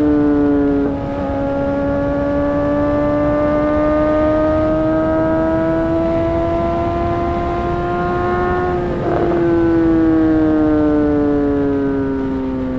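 2008 Honda CBR600RR's inline-four engine under way at high revs. Its note climbs slowly in pitch as it pulls in one gear, with a brief break about a second in. About nine seconds in the throttle eases and the pitch falls steadily, over a rush of wind noise.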